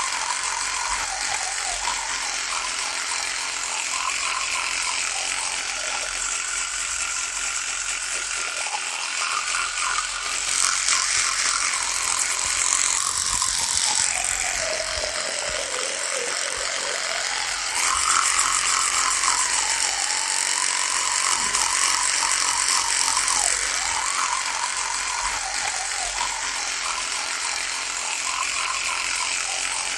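Electric toothbrush buzzing continuously, its pitch wavering up and down. About halfway through the pitch drops lower, then climbs back a few seconds later.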